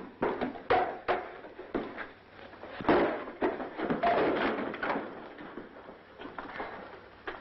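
A quick, irregular run of knocks and thuds, thick in the first few seconds with a heavy one about three seconds in, then thinning out to a few scattered taps toward the end.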